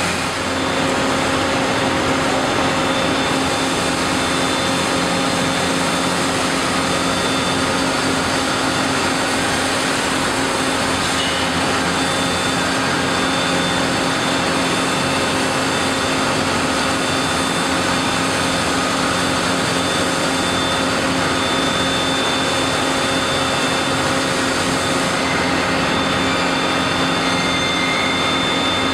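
Hot spring-coiling machine running: a steady, loud machinery noise with a constant hum and a few held tones as the mandrel winds red-hot rod into a large coil spring.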